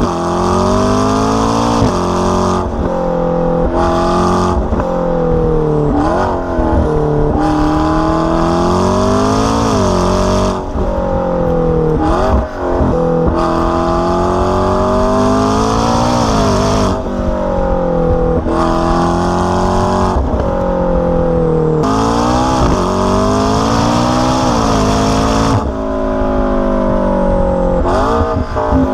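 McLaren 650S twin-turbo V8 through an AWE aftermarket exhaust, driven hard: the engine note climbs and drops again over and over as the car works through the gears, with a few short quick revs in between.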